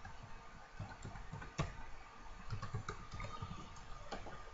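Typing on a computer keyboard: a run of faint, irregular keystrokes as a string of digits is keyed in, one a little sharper than the rest about a second and a half in.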